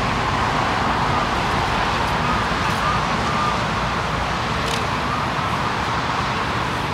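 Steady low rumble of vehicle engines and traffic, with faint short chirps above it.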